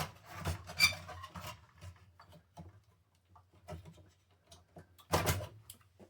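Clicks, knocks and scrapes of hardware being handled inside a small desktop PC case as its power supply is worked loose. There is a group of sharp knocks in the first second and a half, scattered light ticks, then the loudest cluster of knocks just after five seconds.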